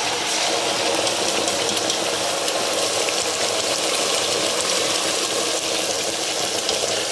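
Fresh blended tomato frying in hot groundnut oil with onions: a steady sizzling hiss with many small crackles.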